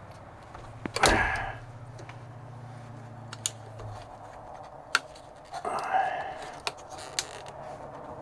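Speedometer and odometer gauge pod being worked out of a truck dashboard: several sharp clicks and knocks of the panel against the dash, with a man grunting with effort about a second in and again near six seconds. A low hum stops about four seconds in.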